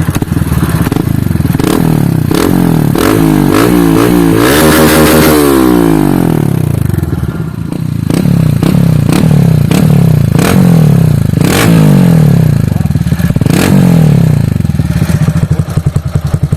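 Honda Fan 150 single-cylinder four-stroke, bored out with a 4 mm kit, revving through a Gemoto Racing aftermarket exhaust in repeated rising and falling blips, with a deep, crackling note.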